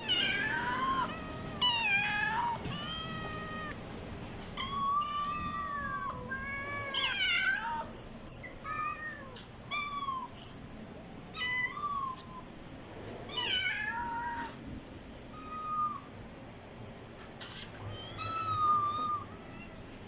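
Kittens and cats meowing over and over, about fifteen high-pitched calls that rise and fall in pitch, some overlapping.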